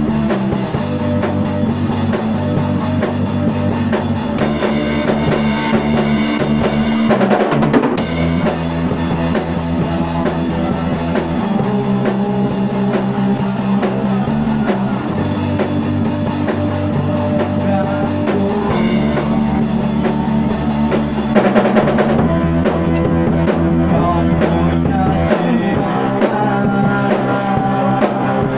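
Rock song played on drum kit, bass and guitar, the bass holding long notes that change every few seconds. About three-quarters of the way through, the steady high cymbal wash stops and only separate strokes remain on top.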